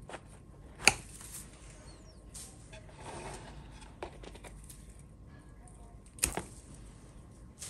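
Bonsai knob cutter snipping through Japanese maple branches at the trunk base: two sharp snaps, the louder about a second in and another about six seconds in, with faint handling noise between.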